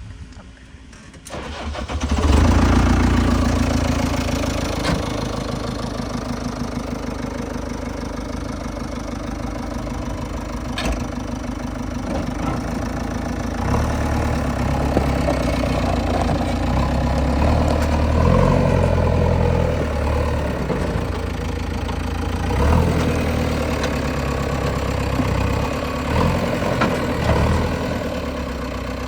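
A diesel engine starts about two seconds in and then runs with an even, rapid firing beat. From about halfway through it runs heavier and deeper, its level and pitch shifting.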